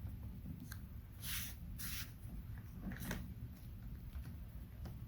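Faint handling of masking tape on the case edge: four or five short scratchy rustles, a few a second apart, over a low steady hum.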